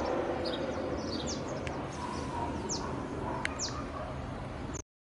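Distant Airbus H225M twin-turbine military helicopter giving a steady low rumble, with small birds chirping in short, quick, downward-sweeping calls over it. All sound cuts off abruptly near the end.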